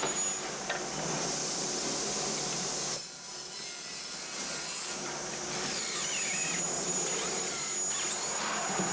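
Power drill boring into wood, running steadily with a change in its sound for a couple of seconds about three seconds in.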